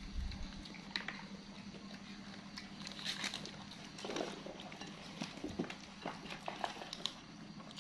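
Faint scattered clicks and crunches of monkeys handling, snapping and chewing raw green beans on the tabletop, a little busier about three seconds in and again from about five seconds.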